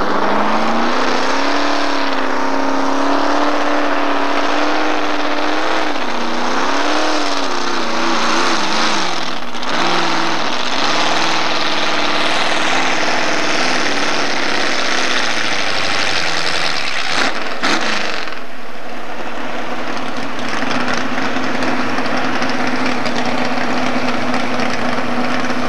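Modified four-wheel-drive pickup truck's engine running hard under load, pulling a weight-transfer sled. The pitch wavers at first, falls away through the middle, and a couple of sharp knocks follow. Near the end the engine settles to a steady, even note.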